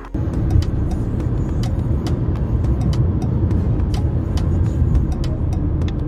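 Steady low rumble of a car driving along a road, heard from inside the vehicle, with many short clicks and knocks scattered over it.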